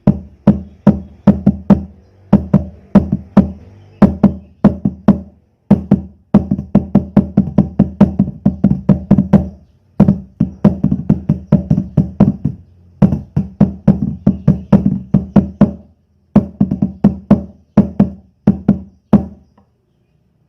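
Homemade floor tom built from scrap materials, beaten in fast rhythmic runs of strikes, each a low ringing drum hit, with short breaks between runs.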